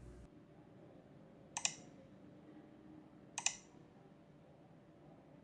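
Two sharp double clicks about two seconds apart over faint room tone.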